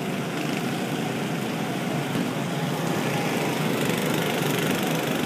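Steady drone of a running motor or small engines, even throughout.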